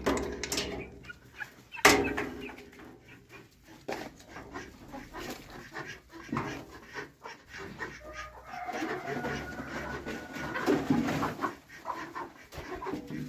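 Chickens clucking, among scattered knocks and clicks; a sharp knock about two seconds in is the loudest sound.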